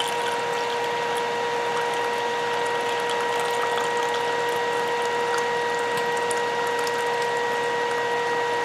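Ninja Foodi air fryer running on broil, its fan giving a steady whirring hum, while gravy trickles from a gravy separator into a plastic measuring cup with faint patters.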